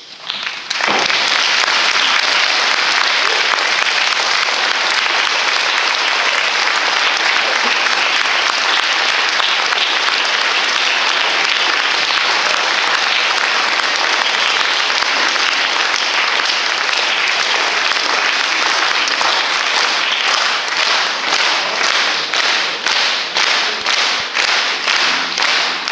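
Audience applause breaks out about a second in and runs loud and steady. Near the end it turns into rhythmic clapping in unison, about three claps every two seconds.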